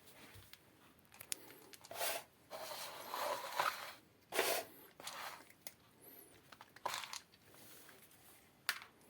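A sleeping cat snoring: a few irregular, noisy breaths, the longest lasting about a second and a half, with a short click near the end.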